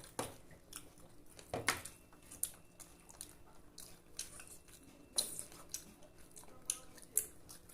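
Close-up eating sounds: chewing and biting with scattered short, irregular clicks and taps.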